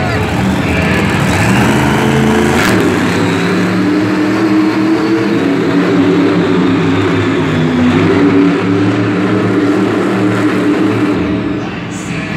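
Monster Energy monster truck's supercharged V8 engine running hard, its pitch rising and falling as the driver works the throttle, with a short drop in revs near the end.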